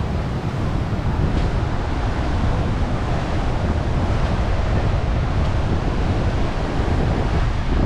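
Steady wind buffeting the microphone, with ocean surf washing in behind it.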